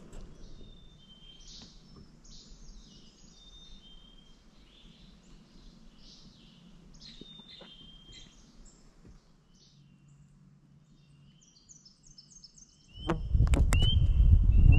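Several wild birds singing, many short high chirps and calls overlapping. About thirteen seconds in, a loud, uneven low rumble sets in and drowns everything else except one bird repeating a short rising chirp about once a second.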